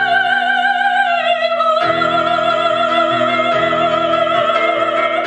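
Female operetta voice holding a long high note with vibrato over sustained accompaniment chords, stepping down slightly about a second in as the song's closing note.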